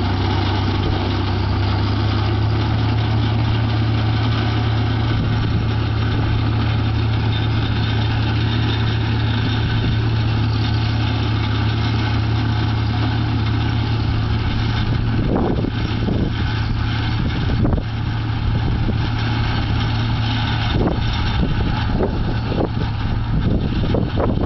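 Case 956XL tractor's engine running steadily as it drives a Bomford flail mower cutting thistles, a constant low drone. Past the middle the drone weakens as the machine moves off, and gusts of wind buffet the microphone.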